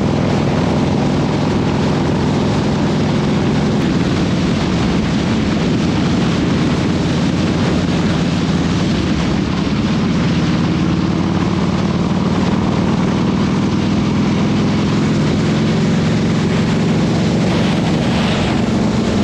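Motorcycle running steadily at cruising speed, with a constant rush of wind and road noise over the engine's low hum.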